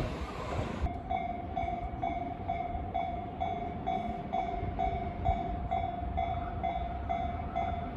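Japanese railway level-crossing alarm dinging about twice a second over a low rumble. For about the first second the noise of a passing train covers it, then cuts off abruptly.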